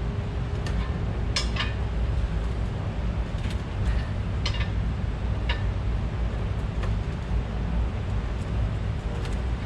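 Wrench and metal fittings clinking against a steel air tank as the fittings are threaded in and tightened: about ten sharp, irregular clinks over a steady low rumble.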